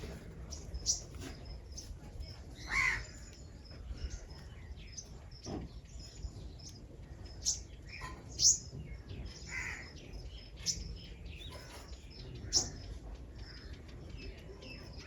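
Wild birds calling around a fruit feeder: scattered short, sharp high chirps every second or two, with a few longer, lower calls, over a steady low background hum.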